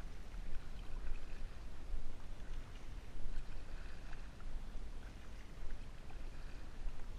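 Kayak being paddled: water splashing and trickling off the paddle and lapping at the hull, over a steady low rumble.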